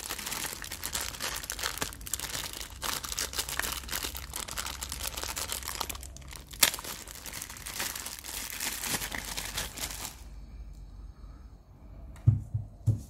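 Thin clear plastic bag crinkling as it is pulled off a small Bluetooth speaker, for about ten seconds. Then a short quiet and a few dull knocks near the end as the speaker is put down on a wooden table.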